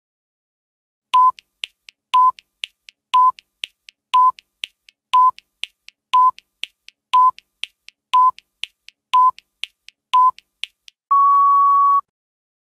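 Countdown timer sound effect: ten short electronic beeps a second apart with faint ticks between them, then one long, slightly higher beep lasting about a second as the count reaches zero.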